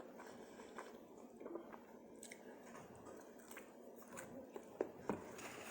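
Soft chewing and mouth sounds of a person eating close to the microphone, with a few scattered small clicks.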